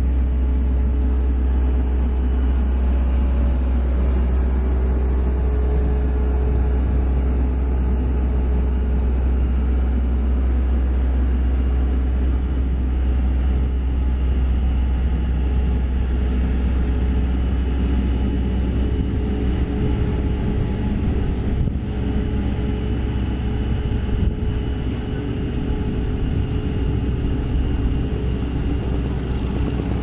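Diesel engines of two Sakai pneumatic-tyred road rollers running steadily as they roll slowly over fresh asphalt: a steady low rumble.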